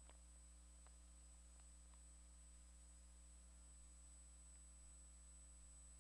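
Near silence: steady low electrical hum of the recording, with a few faint clicks in the first two seconds.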